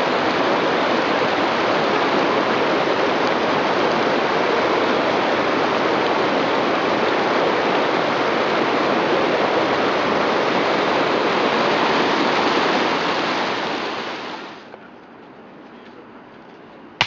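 River water rushing over rocks in shallow rapids, a steady loud rush that fades away about three-quarters through, leaving only a faint background.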